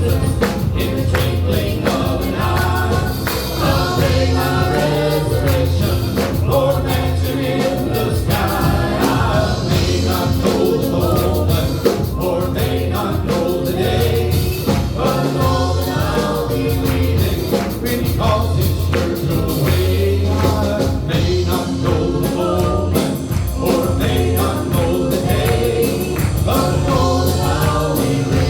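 Southern gospel song with group vocal harmony over a full band with a steady beat.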